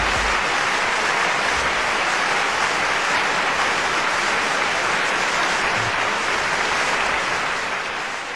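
A steady, even rushing noise that fades out near the end.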